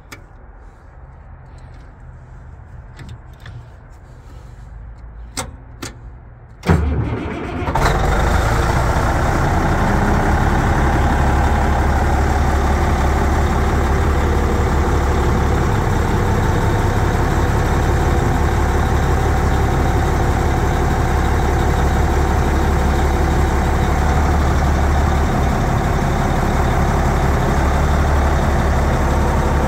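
A few sharp clicks and knocks, then about seven seconds in the Caterpillar D8R bulldozer's diesel engine cranks briefly and starts. It settles into steady running with a deep, even hum.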